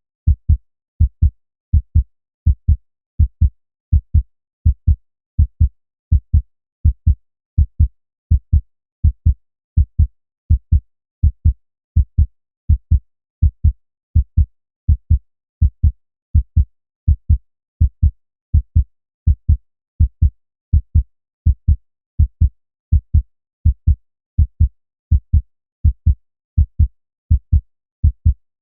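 Human heartbeat: a steady lub-dub rhythm of paired low thumps, a little over one beat a second, with silence between beats.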